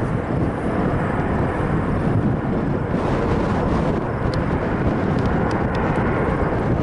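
Jet airliner passing on approach, its engines making a loud, steady rumble.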